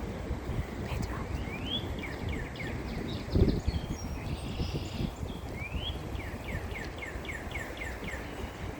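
A songbird singing two phrases, each a rising note followed by a quick run of about eight falling notes, over a steady low wind rumble on the microphone. There is a brief low thump about three and a half seconds in.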